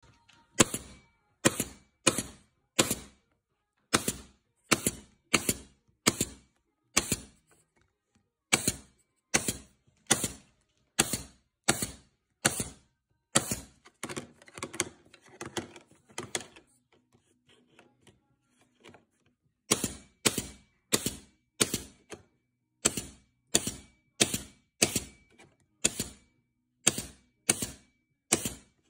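Nail gun shooting nails through the metal ferrules of paint brushes into their wooden handles: sharp single shots, a little under one a second, with a pause of about five seconds in the middle where only quieter clattering is heard.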